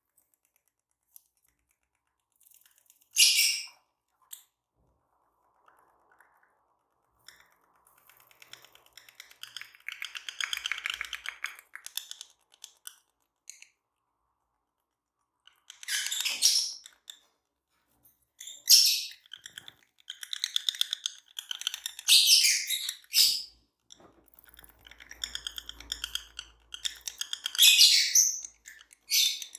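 A pair of Fischer's lovebirds chattering: quiet, rapid chirping broken by short, loud, shrill calls, the first about three seconds in and several more in the second half.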